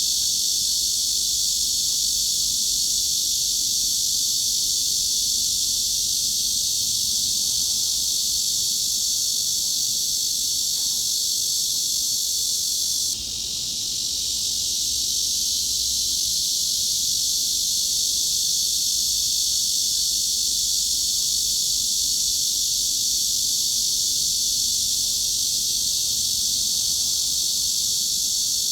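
Continuous cicada buzz with nearly all of its sound pitched high, above about 3 kHz, used as a tinnitus masking sound. Around halfway through it briefly dips and then swells back to its steady level.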